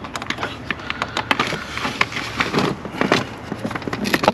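Irregular light clicks, knocks and rattles of hands working on the BMW N54 engine's rear diverter valve and the parts around it, twisting and feeling for its release.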